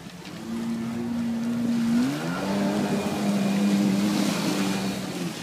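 Jet ski engine running, growing louder over the first two seconds, then shifting in pitch as the throttle changes.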